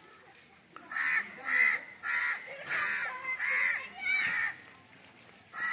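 Crow cawing: a run of six harsh caws, about two-thirds of a second apart, starting about a second in, then one more caw near the end.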